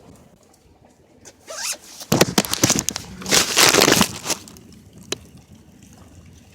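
Close rustling and scraping right against the microphone for about two seconds, with a sharp click about five seconds in: handling noise from the recording phone rubbing against clothing.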